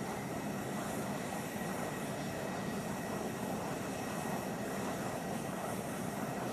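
Twin General Electric TF34 turbofan engines of A-10 Thunderbolt II jets running at taxi power: a steady, unchanging rush of jet noise with a thin high whine held at one pitch.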